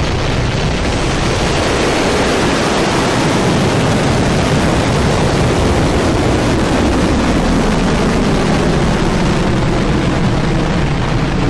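Firefly Alpha rocket's four Reaver 1 kerosene and liquid-oxygen first-stage engines at liftoff, running at full thrust. A loud, steady rush of exhaust noise, heaviest in the low range.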